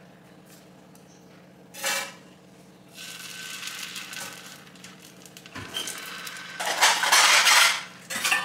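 Steel ladle clinking and scraping as paddu batter is spooned into a hot cast-iron paddu pan, the batter sizzling in the oiled wells. A short clatter comes about two seconds in; the hissing sets in about a second later and is loudest near the end.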